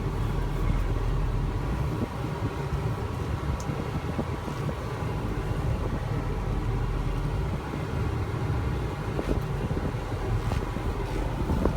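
Ford F-450 truck engine idling steadily, a low even rumble, with some wind on the microphone.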